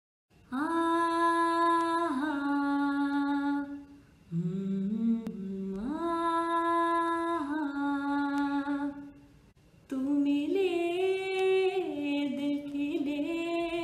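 A woman hums a wordless melody with no accompaniment, in three phrases of long held notes with short breaths between them.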